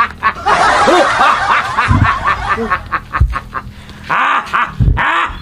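A person laughing in breathy snickers: one long laugh at the start, then several shorter bursts.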